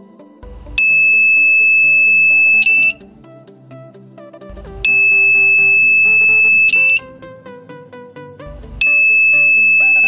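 Piezo buzzer on an Arduino door alarm sounding a steady high-pitched beep about two seconds long, three times, about every four seconds: the alarm tripped by the magnet being pulled away from the magnetic reed switch.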